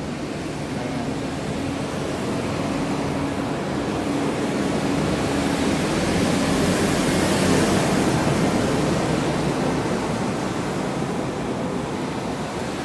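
A bus driving past: its engine and tyre noise swell to a peak about seven seconds in, then fade, over a steady low hum.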